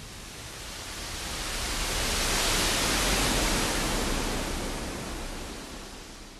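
A smooth rush of noise, with no tone or beat in it, that swells up to a peak about three seconds in and then fades away.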